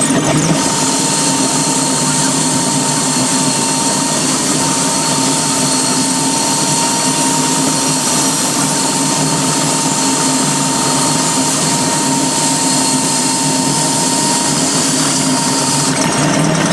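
A machine running steadily with several held tones. A higher, hissing whine joins about half a second in and cuts off about a second before the end.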